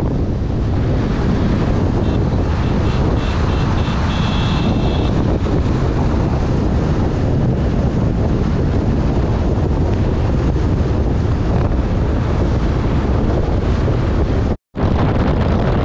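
Heavy wind rush on the microphone with road noise from a vehicle driving fast along a highway, steady throughout. Faint high tones flicker briefly a few seconds in, and the sound cuts out for a split second near the end.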